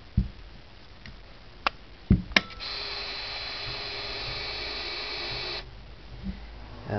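A few sharp mechanical clicks, then the Contax G2's built-in film-transport motor whirring steadily with a high whine for about three seconds before it stops abruptly.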